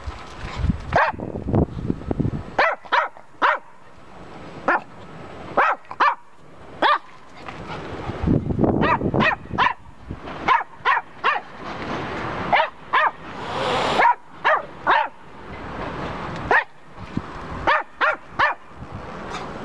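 Petit brabançon barking repeatedly at a cat: dozens of short, sharp barks in uneven runs, some in quick pairs and threes.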